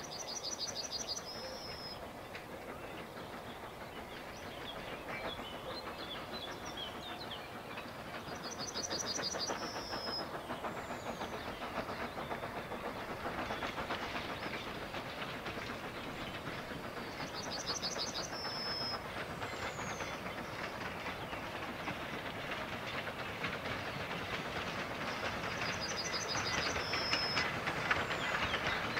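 Narrow-gauge steam train running, its chuffing and wheel clatter slowly growing louder as it approaches. A songbird repeats a short high trill about every eight or nine seconds.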